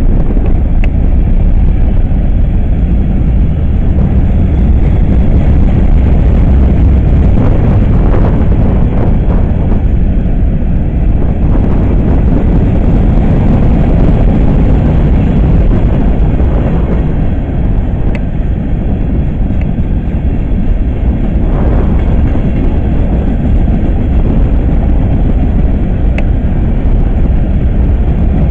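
Freight cars rolling past close by: a loud, steady low rumble of steel wheels on rail, with a few brief sharp clicks.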